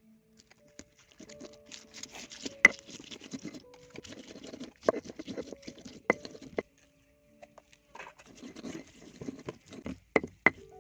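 Hands-on food preparation: irregular rustling and patter broken by sharp taps and knocks, the loudest about a third of the way in and a quick run of them near the end, over faint background music.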